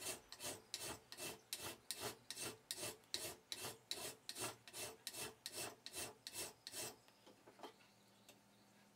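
Hand file stroking back and forth across the edge of a small piece of metal angle held in a bench vise, a quick even rasp about three strokes a second, stopping about seven seconds in. The edge is being filed square and smooth after a rough hacksaw cut.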